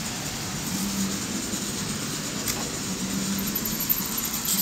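Large-scale model train running on the layout track: a steady rolling noise with a hum that comes and goes, and a faint click about two and a half seconds in and another near the end.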